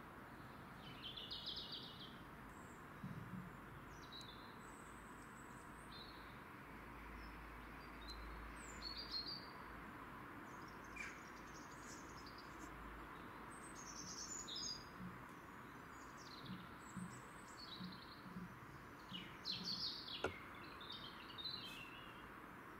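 Small birds chirping and singing on and off, faint, over a steady background hiss.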